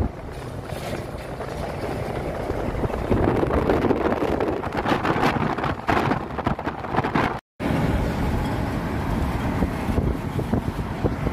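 Expressway traffic noise heard from a moving vehicle: tyre and engine noise with wind on the microphone as large trucks pass close alongside. The sound cuts out for a moment about seven and a half seconds in, then carries on.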